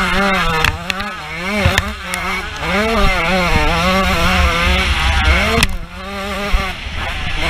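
125cc two-stroke motocross bike engine revving hard, its pitch climbing and falling again and again as the rider works the throttle and gears. Wind rumbles on the helmet-mounted microphone. The engine note drops off briefly about six seconds in, when the throttle closes, then picks up again.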